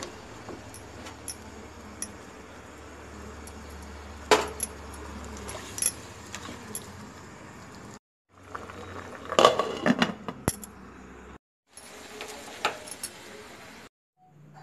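Water bubbling in a pan of vegetables and whole spices, a faint steady sound, with a few sharp clinks of utensils or a glass lid against the pan, the loudest cluster about nine to ten seconds in.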